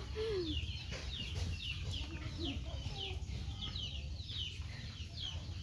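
Chicks peeping repeatedly, several short falling cheeps a second, with a few lower clucks from chickens among them, over a low steady rumble.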